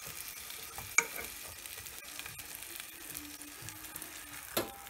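Butter sizzling in a pot of hollowed zucchini shells, the heat under it just switched off. A sharp click about a second in and a knock near the end.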